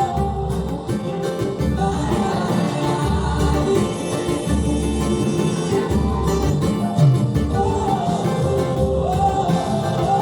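Pagode music: a melody line over a regular deep bass pulse, with a strummed cavaquinho.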